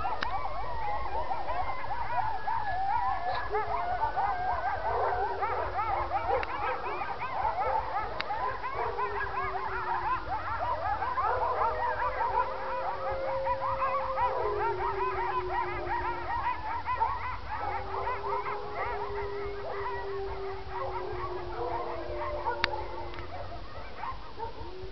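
A pack of coyotes yipping and howling in a rapid, warbling chorus. Long, steady, lower howls run beneath it and carry on as the yipping thins out over the last few seconds.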